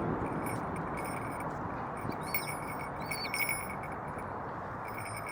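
Small metal bells jingling in several short bursts, busiest about two to three and a half seconds in, with two short high chirps, over a steady rushing background.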